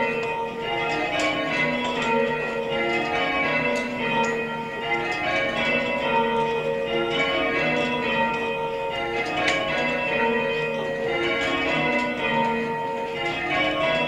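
Ring of full-circle church tower bells, recast by John Taylor's of Loughborough, ringing rounds: each bell struck in turn from the treble down to the heaviest, over and over, in a steady cascade of overlapping ringing tones.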